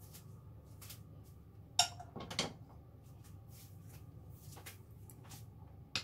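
Kitchen tableware clinking and knocking: a sharp clink about two seconds in, a short rougher knock right after it, and another clink near the end, over a steady low hum.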